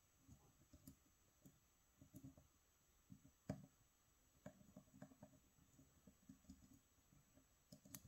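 Faint, irregular clicks and light scraping of a lock pick working the pins of a pin-tumbler cylinder lock with serrated security pins, while a tension tool holds the plug. One sharper click comes about three and a half seconds in.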